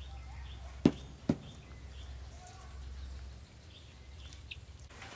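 Two sharp knocks about half a second apart, over a low steady outdoor background with faint bird chirps.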